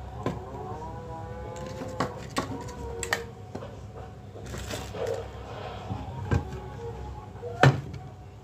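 Plastic jars, bottles and packets being picked up and set down on a kitchen counter as it is cleared: a handful of sharp knocks, the loudest near the end. A faint wavering tone sounds in the background.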